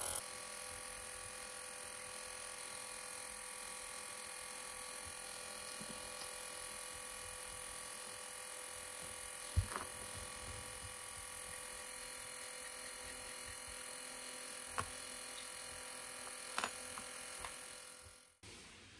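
A few short clicks and taps as small vintage fountain pen parts are handled, over a steady hum.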